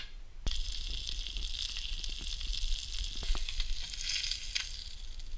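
Frog legs sizzling as they fry in oil in a pan, with a few small crackles. The sizzle starts suddenly about half a second in.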